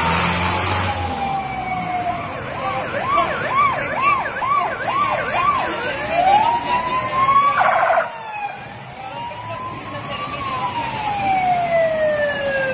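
Ambulance sirens sounding as the vehicles pass. They switch between a slow rising-and-falling wail and a fast yelp of quick up-and-down sweeps, with a brief rapid warble a little past halfway.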